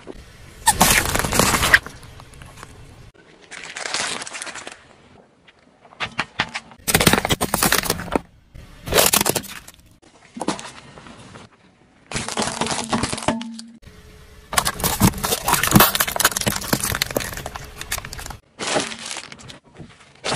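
A car tyre rolling over and crushing small objects, plastic toys among them: a series of about eight separate cracking, crunching bursts of a second or two each, cut one after another with abrupt starts and stops.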